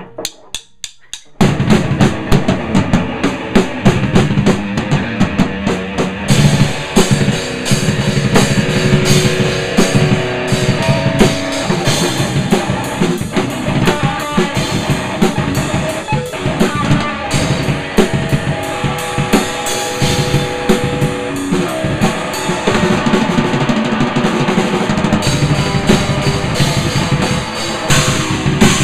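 Drum kit played by hand with sticks: a few scattered hits, then about a second and a half in, fast, loud playing on the bass drum, snare and cymbals that runs on without a break.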